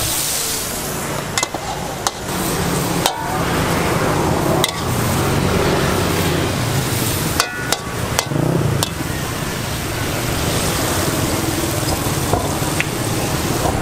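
Hot oil sizzling in a wok while a metal spatula stirs morning glory, clacking against the wok's side every second or so, with a cluster of clanks about halfway through.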